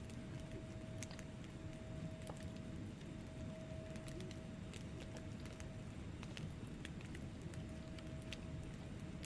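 Wood fire burning in a fireplace: scattered crackles and small pops of the logs over a steady low rumble of flames. A faint steady tone runs under it and fades out about six seconds in.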